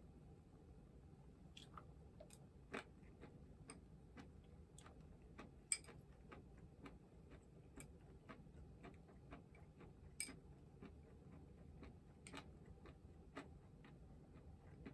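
Faint eating sounds: chewing with many small irregular clicks and taps of chopsticks on a small ceramic bowl, a few of them sharper, the sharpest about six seconds in.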